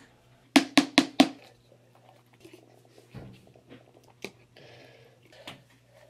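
A burst of four quick, loud coughs in about a second, from someone who has just exhaled bong smoke. A few fainter knocks and a brief hiss follow.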